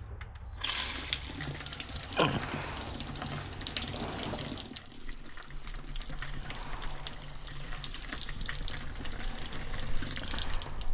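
Water running from a garden hose into a livestock water container, a steady splashing rush that starts under a second in. A short falling squeal cuts in about two seconds in.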